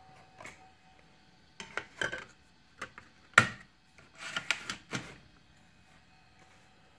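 Sharp plastic clicks and clacks of a CD being pressed onto the open CD-ROM drive tray of a Toshiba Satellite Pro 420CDT laptop and the tray being handled shut, with the loudest, sharpest click about three and a half seconds in. A faint steady hum runs underneath.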